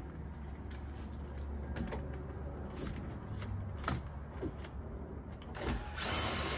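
Scattered clicks and knocks as a CAMO DRIVE stand-up screw-driving tool is set against the edge of a cedar deck board. Near the end the cordless drill mounted on it starts whirring, driving a Camo Edge deck screw.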